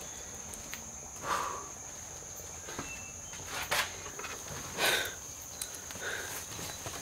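A steady, high-pitched drone of insects, with a few separate scuffing steps and rustles of a backpack on a dirt floor.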